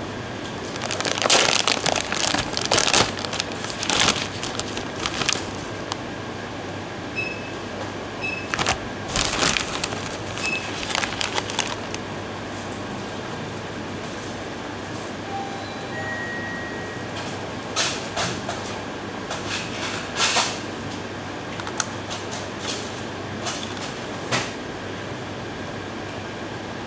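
Plastic snack bag of waffle-cut black pepper potato chips crinkling as it is handled and opened, in bursts over the first few seconds and again around ten seconds in. Later come a few crisp crunches as a thick chip is bitten. A steady hum runs underneath.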